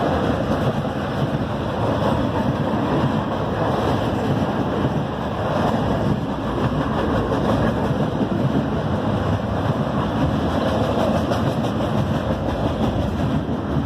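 A freight train's pipe-loaded flatcars rolling past on the track: a steady, loud noise of steel wheels on rail.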